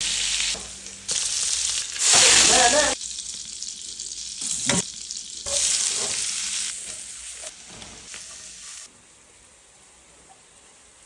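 Chicken frying in a hot pan, sizzling in several short bursts that start and stop abruptly. The sizzling is loudest about two seconds in and drops to a faint hiss near the end.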